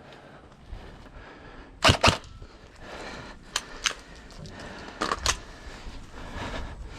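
Airsoft guns firing sharp, snappy shots in three quick pairs, spaced about a second and a half apart.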